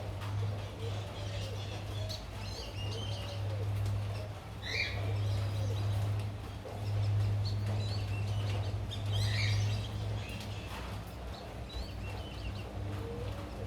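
Birds chirping in short bursts, with a soft call repeated every second or so, over a steady low hum.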